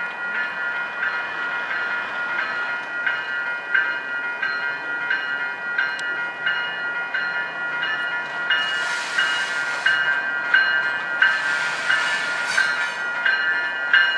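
Railway bell ringing at a steady beat of about two strokes a second, its tones hanging on between strokes. Air hisses twice in the second half.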